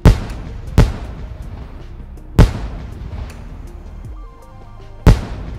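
Firework shells bursting in four loud bangs: one right at the start, one just under a second in, one about two and a half seconds in and one near the end, each trailing off in an echo. Music with held notes plays throughout.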